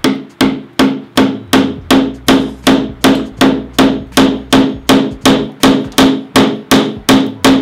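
Claw hammer striking the end of a wooden stick again and again, driving it down into a hole in a wooden block: about twenty sharp, evenly paced blows, nearly three a second, each with a short ring.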